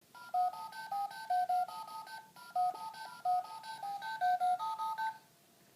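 Telephone keypad touch tones (DTMF): about two dozen short two-note beeps in a quick run, with a brief pause a couple of seconds in, stopping abruptly about five seconds in.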